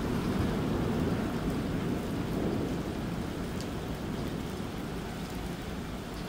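Thunder rolling long and low over steady rain, strongest in the first few seconds and slowly dying away.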